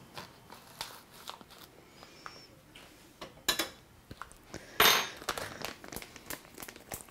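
Plastic spice bag crinkling and a metal measuring spoon clicking against the bag and a pot as ground cardamom is spooned in, with louder rustles about three and a half and five seconds in.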